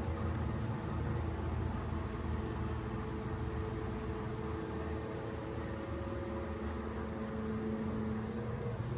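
Steady low machine hum with several held tones, with no break or change in level.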